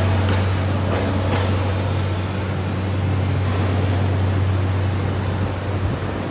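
CNC roll bending machine running, a steady low hum with hiss over it and a few faint clicks early on; the hum cuts off near the end.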